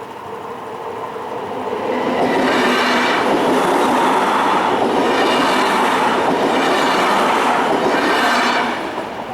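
TSR electric multiple-unit train passing over the level crossing at speed: wheels clattering on the rails. It builds over the first two seconds, stays loud for about six seconds with regular swells as the cars go by, then drops off sharply near the end as the last car clears.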